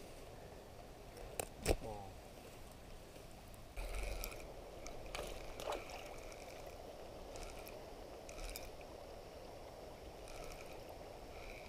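Faint handling sounds of a fishing rod and spinning reel: two sharp clicks about a second and a half in, then a few soft scrapes. Under them is a steady low rush of moving water.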